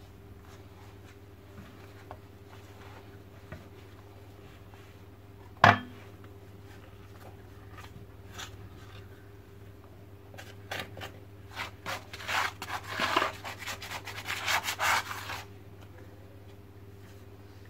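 Hands kneading and gathering floury dough in a wooden kneading bowl: soft rubbing and scraping, with one sharp knock a little under six seconds in and a run of louder scraping and rubbing strokes in the second half.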